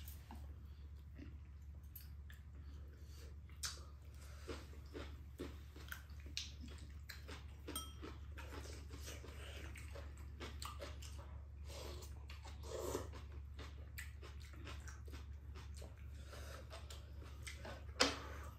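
Faint eating sounds: chewing, with scattered light clicks of chopsticks and spoons against ceramic bowls, over a steady low hum. A sharper clink near the end is the loudest sound.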